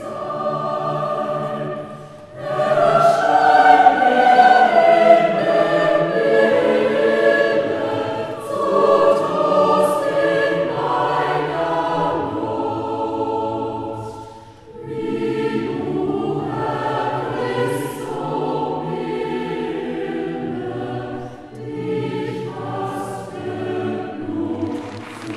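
Church choir singing several sustained phrases, with short breaks between them about two seconds in and again about midway.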